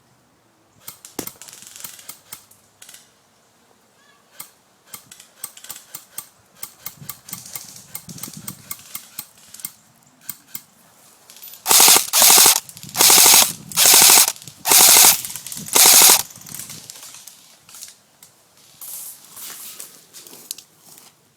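Airsoft guns firing. Scattered single shots and short strings come first, then about two-thirds of the way through, five loud full-auto bursts of about half a second each, then a few quieter bursts near the end.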